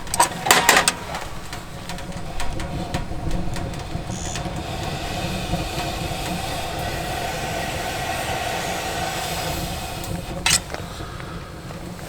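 Wood fire burning in a small wood stove, with a steady rushing hiss. A few sharp crackles come in the first second and another about ten and a half seconds in.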